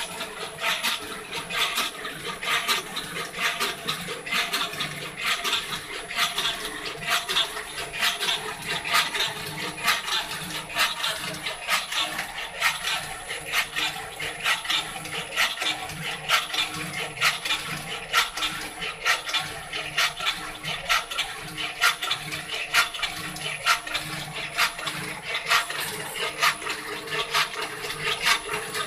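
Small CNC machine cutting: a thin steady high whine with a dense, irregular patter of clicks and scraping from the tool working the material.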